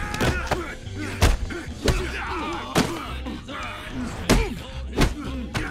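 Film fight sound effects: about half a dozen sharp punch and body-blow impacts, roughly a second apart, with grunts of effort between them.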